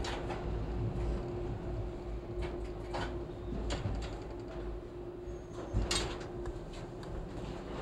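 Subway train running through a tunnel, heard from the front car: a steady low rumble and hum, with sharp clacks from the wheels and track a few times. The loudest clack comes about six seconds in.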